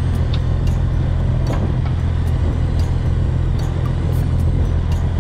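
Fishing boat's engine running steadily with a low, even hum, with faint scattered clicks over it.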